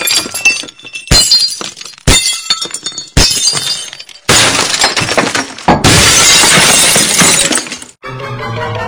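A sharp crash about once a second, four times, then a long, loud crashing noise lasting nearly four seconds, over music; a tune with gliding notes takes over near the end.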